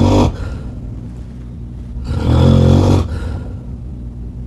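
Loud snoring: a short snore right at the start, then a longer, low rumbling snore about two seconds in that lasts roughly a second.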